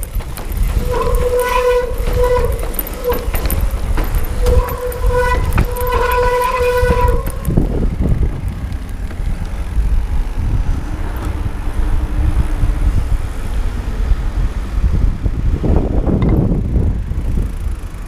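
Electric mountain bike's disc brakes squealing on and off, a steady high howl, as the rider brakes down a steep cobbled lane; the squeal stops about seven seconds in. Heavy wind rumble on the camera microphone and tyre noise run under it throughout.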